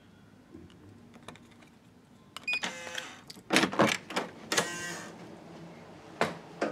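Hotel keycard door lock: a short electronic beep about two and a half seconds in, then the lock and handle clacking as the door is unlatched and pushed open, with one sharp knock near the end.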